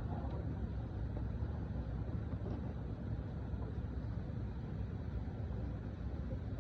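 Steady low rumble of a boat's motor running.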